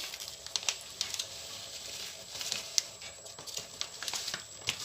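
Soft, irregular taps and rustling from handling cheese for the lasagna.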